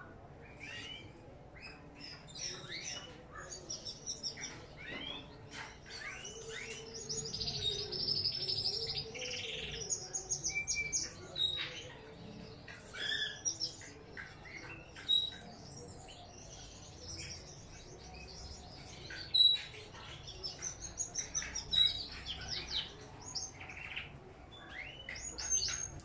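Canaries and Gouldian finches chirping and singing together: a busy stream of short, high chirps overlapping with longer warbling, trilling song phrases.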